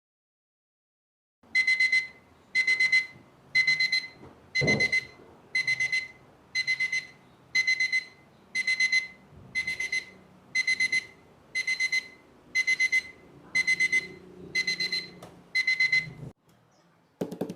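Digital alarm clock beeping: quick groups of four short high-pitched beeps, repeating about once a second. The beeping starts about a second and a half in and stops shortly before the end.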